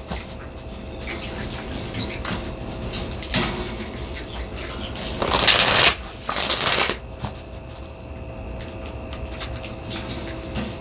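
A deck of tarot cards being shuffled by hand in several short bursts, the loudest about halfway through.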